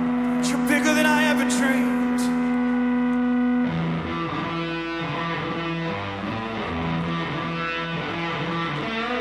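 Live band music led by an electric guitar played through effects: a chord is held, then about four seconds in it changes to a shifting, repeating pattern of notes.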